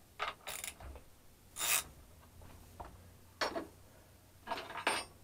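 Four or five short metallic scrapes and rubs, spread over a few seconds, as a chainsaw's chain tension is adjusted and tools are handled at the bench.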